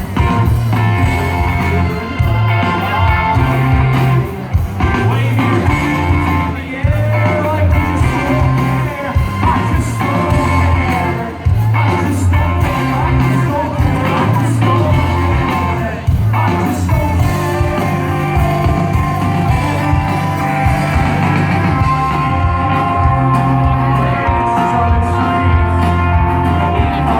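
Rock band playing live: singing over guitar, bass and drums, with a held note ringing through the last few seconds.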